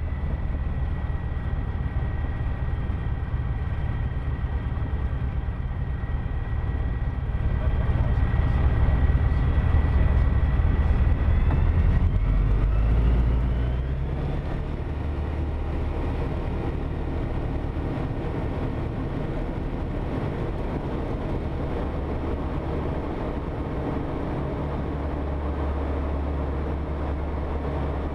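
Light aircraft's piston engine and propeller running during a taxi on a grass strip, heard from inside the cockpit as a steady drone. It grows louder about seven seconds in, then drops back about six seconds later and holds steady.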